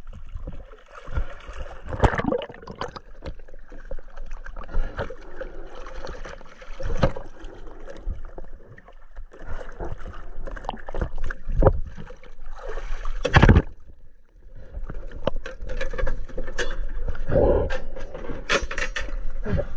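Choppy sea water sloshing and splashing around a camera held at the waterline, with irregular knocks and bumps, the loudest about two-thirds of the way through.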